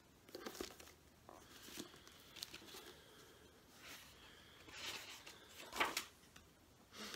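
Paper rustling as a hardcover book is opened and its pages are turned: several short, faint rustles, the loudest one late on.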